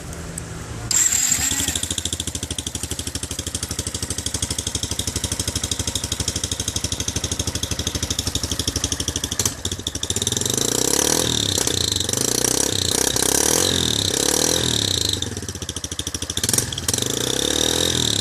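Yamaha Fazer 150's single-cylinder four-stroke engine running through a Roncar ML Competition aftermarket exhaust, with a rapid, steady putter that gets suddenly louder about a second in. From about ten seconds in it is revved up and down repeatedly, with misfires that the owner puts down to running on ethanol alone.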